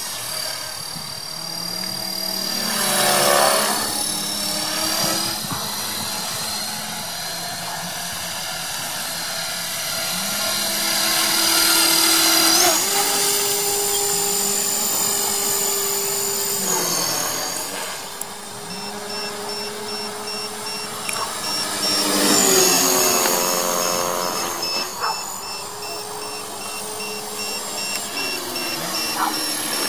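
450-size electric RC helicopter (HK450 V2) in flight: the Turnigy SK3 2839 3600KV brushless motor and geartrain whine over the buzz of the main rotor. The pitch of the whine shifts up and down several times as the helicopter manoeuvres.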